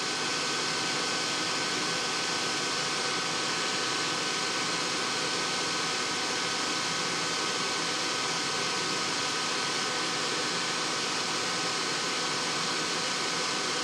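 Steady, even background hiss with a faint high steady hum, like a running fan; no distinct event is heard.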